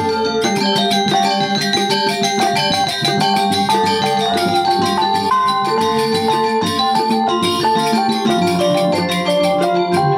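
Background music: a busy run of quick, ringing pitched notes over a lower line of held notes, at a steady level.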